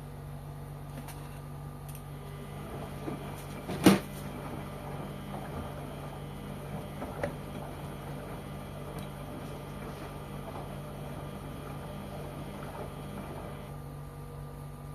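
LG washing machine running with a steady hum. There is one sharp knock about four seconds in and a smaller one about seven seconds in.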